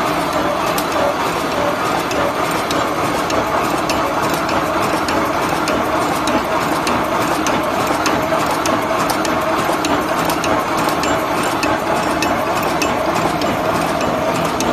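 Automatic roll-type welded wire mesh machine running: a steady mechanical clatter with a quick, uneven series of sharp clicks as the mesh is spot-welded and fed onto the roll.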